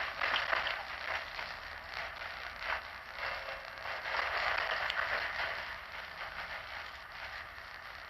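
Interior noise of a bus on the move: a steady low rumble under a continuous hissing rattle, with scattered light clicks and rustles.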